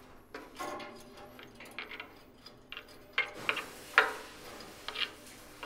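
Light metallic clicks and scraping as the cut-off stub of a smoke tube is worked about inside a steam locomotive boiler, being fished out through the washout hole. A few sharper metal clinks come in the second half, the loudest about four seconds in.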